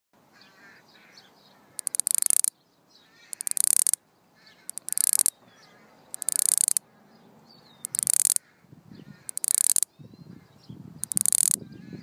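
Cicada calling in short buzzy bursts, seven of them about a second and a half apart. Each burst opens with a few quick clicks, then a harsh high buzz lasts about half a second and cuts off sharply. Faint bird chirps come between the bursts.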